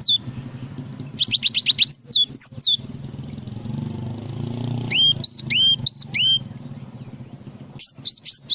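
Glatik songbird singing in varied phrases of sharp whistled notes: falling whistles, a quick trill about a second in, a run of rising notes around five seconds, and a fresh burst near the end. A steady low hum runs underneath.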